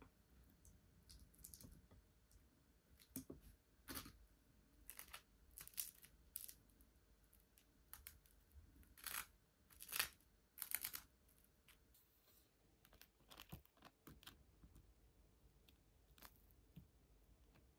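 A table knife scraping cream cheese across crusty toast: a scattered run of short, dry scrapes, loudest about halfway through, with a few light clicks of the knife and foil wrapper against the plate.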